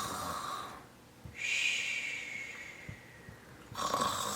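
A woman's voice imitating a bear snoring: a snorting in-breath, then a long breathy out-breath with a whistle that falls slightly in pitch, then another snorting in-breath near the end.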